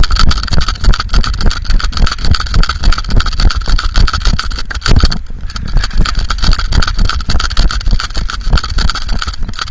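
Dense rubbing, scraping and knocking against the microphone of a JVC Adixxion action camera strapped to a small dog as it moves, over a heavy low rumble.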